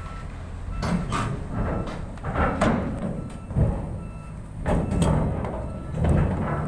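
Diesel engine of a 120-ton crawler crane running under load as the crane travels onto a landing craft's ramp, with a travel alarm beeping at a steady pace and irregular loud metal clanks from the crawler tracks on the steel ramp.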